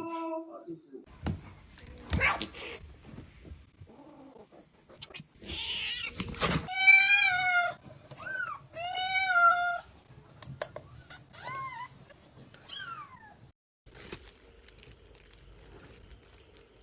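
Cat meowing: two long meows about seven and nine seconds in, then shorter, higher calls a few seconds later, with a few knocks or rustles in between.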